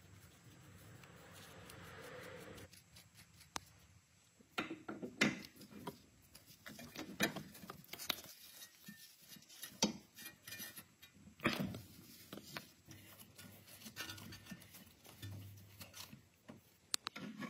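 Faint, scattered metallic clicks, taps and scrapes as a new Volvo outer tie rod end is handled, threaded onto the inner tie rod and seated in the steering knuckle.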